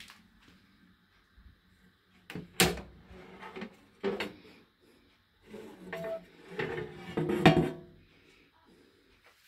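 Plastic basket drawer of an Instant Vortex 6-quart air fryer being pulled out and the basket handled. There is a sharp click, a second one about a second and a half later, then a few seconds of knocking and scraping, with the loudest knock near the end.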